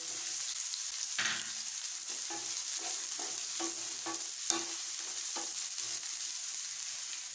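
Chopped onion sizzling in hot oil in a non-stick frying pan, stirred with a wooden spatula in short strokes about twice a second.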